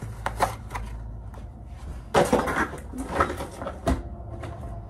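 Cardboard advent calendar being handled after a door is opened: rustling and sharp clicks, with a louder scuffle about two seconds in and a few knocks and thumps after it.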